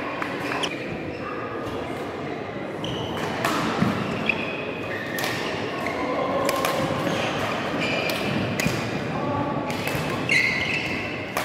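Badminton rally: racket strings striking the shuttlecock in an irregular series of sharp hits, with short high-pitched shoe squeaks on the court floor and a background murmur of the hall.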